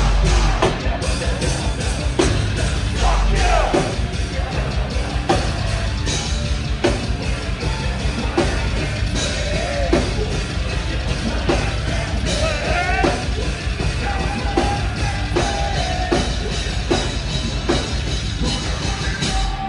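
Heavy metal band playing live through a concert PA: hard-hitting drums, distorted guitar and sung and yelled vocals.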